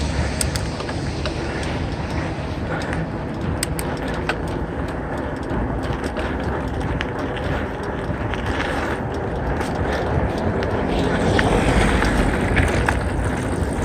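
Mountain bike riding along a road: wind rushing over the chest-worn phone's microphone and tyre noise, with scattered small clicks and rattles. The noise swells in the last few seconds.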